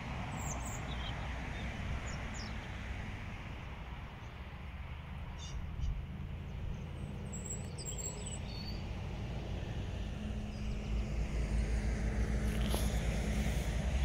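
Low rumble of wind buffeting the microphone, growing stronger in the last few seconds, with a few short, faint bird chirps.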